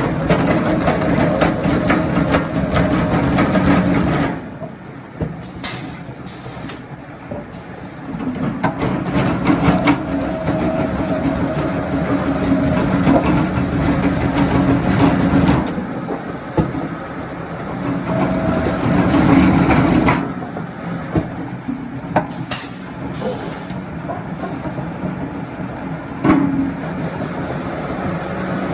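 Wood-processing machinery running with a steady low hum, swelling into louder, noisier stretches three times as work passes through it.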